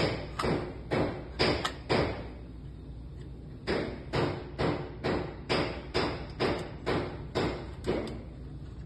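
Lock hardware being knocked into place as the core of a smart lock is fitted, sharp knocks about two a second: a run of five, a pause of over a second, then about ten more.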